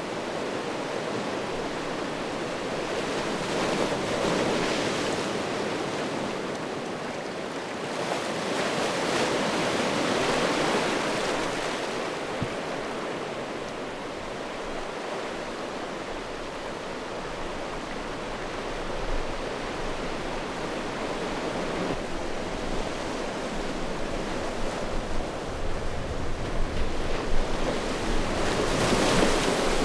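Sea waves washing in over a cobble beach: a steady surf hiss that swells with each wave, about four seconds in, again around ten seconds, and near the end.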